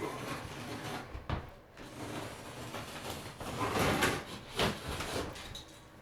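Drywall being pried and broken off an interior wall: irregular scraping and crunching with a couple of sharp knocks, the loudest crunch about four seconds in.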